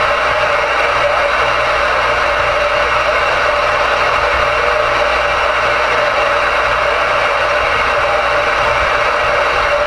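Ten-meter radio receiver's speaker giving a loud, steady rush of band noise (static) on an occupied channel, with a faint steady tone running under the hiss.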